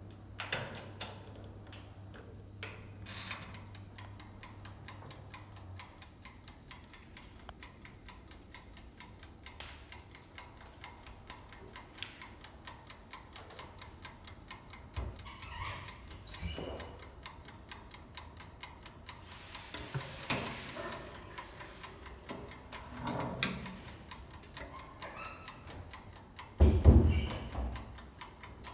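Pensonic AE-19N electric oven's mechanical timer ticking steadily as it counts down, after a couple of louder clicks from the knob being turned at the start. A loud thump near the end.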